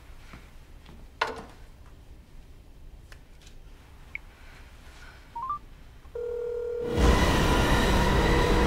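Smartphone keypad beeps as a number is dialed, about five seconds in. A steady phone tone follows about a second later. Near the end a much louder, steady rumbling noise comes in over it.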